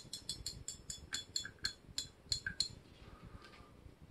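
Drag clicker of a Shimano Stradic 4000HG spinning reel clicking evenly as line is pulled off the spool under a set drag. The clicks slow and stop about two and a half seconds in. The drag lets line out smoothly.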